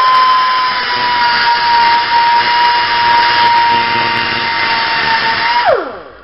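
Angle grinder grinding a bevel onto the cut end of a homemade metal bolt: a steady high whine with the rasp of grinding over it. Near the end it is switched off and the whine falls away as it winds down.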